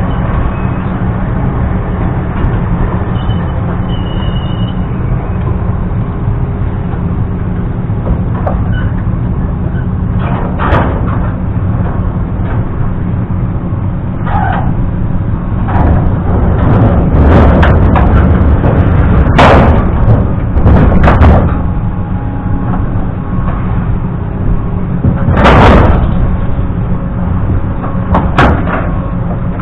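An engine running steadily, with a series of loud bangs and knocks over it from about ten seconds in.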